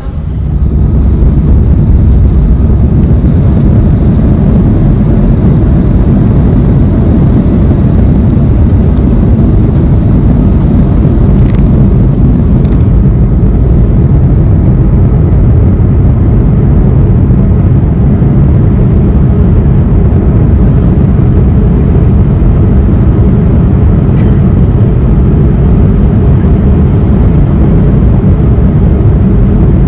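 Loud, steady low rumble of a moving vehicle heard from inside its cabin, with a few faint clicks.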